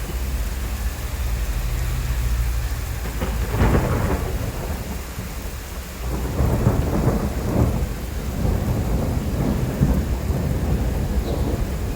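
Steady rain with thunder: a rumble swells about three and a half seconds in, then a longer rolling rumble runs from about six seconds until near the end.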